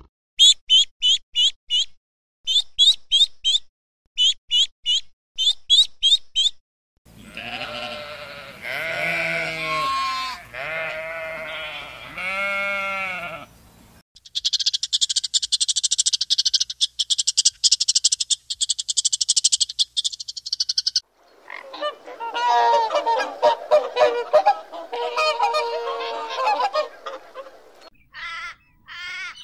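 A run of different animal calls in separate cuts. First come quick high chirps in short groups, then pitched calls rising and falling, then a dense high buzzing rattle for about seven seconds. A chorus of many overlapping calls follows, and a few high chirps come near the end.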